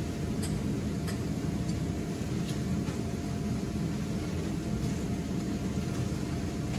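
Electric blower of an inflatable waterslide running steadily, a constant low rush of air that keeps the slide inflated.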